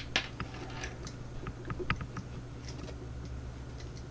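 Small scattered clicks and taps of a lock and hand tools being handled while the lock is taken apart, several close together in the first two seconds, then only a few, over a faint steady hum.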